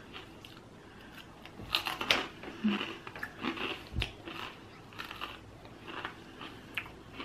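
Close-up mouth sounds of someone chewing a mouthful of salad: a scattered string of crisp crunches and wet clicks. A single low bump comes about four seconds in.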